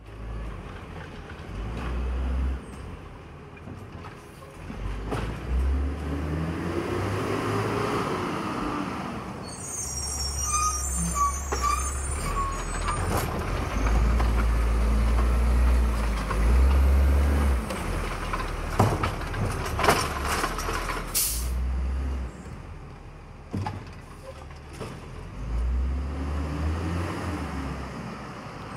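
Heil automated side-loader garbage trucks at work: the diesel engine runs and revs up and down several times as the hydraulic arm lifts and dumps curbside carts, with air brake hiss and a few sharp knocks about two-thirds of the way through.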